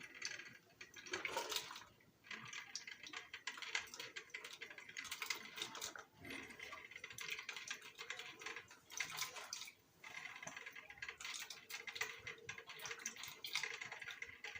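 Mr. Coffee 5-cup drip coffee maker running a cycle of plain water, with faint, irregular sputtering and trickling as the heated water passes through.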